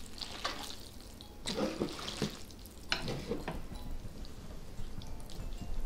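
Saucy instant black-bean noodles being lifted and stirred with metal tongs in a pan: wet, slippery squelching and dripping in short bursts, with light clicks of the tongs.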